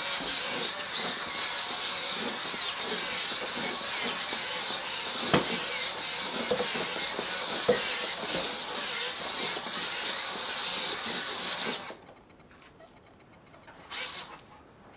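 High-torque hobby servo motors driving a robot doll's limbs: a loud hissing buzz with a wavering high whine, broken by two sharp knocks. It cuts off suddenly about twelve seconds in, leaving a few faint clicks.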